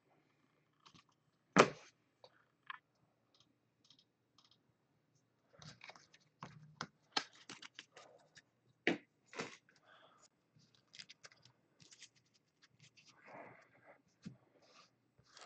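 Scattered clicks and taps from trading cards and hard plastic card cases being handled and set down on a table mat, the sharpest click about a second and a half in and another about nine seconds in, with a busier run of small taps in between.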